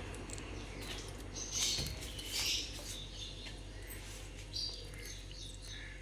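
Indian ringneck parakeet giving a few short, high chirps, mostly in the first half and once more near the end, with scattered small clicks.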